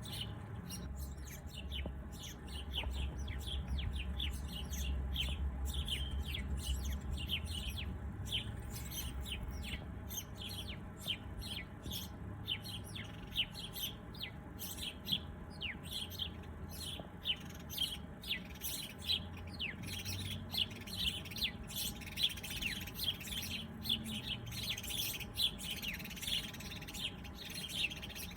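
Several small birds chirping continuously in quick, short, falling notes, thickest in the second half, over a low background rumble.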